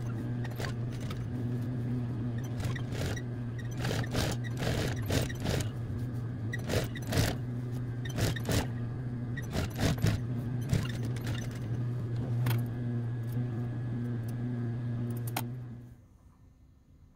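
Electric sewing machine running, edge-stitching a felt appliqué onto a knit T-shirt: a steady motor hum with frequent clicks, stopping suddenly near the end.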